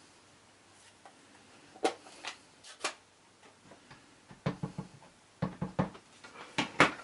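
Light plastic clicks and taps of stamping supplies being handled and set down on a stamping platform's acrylic lid: a few scattered at first, then clusters of quick taps in the second half, the loudest near the end.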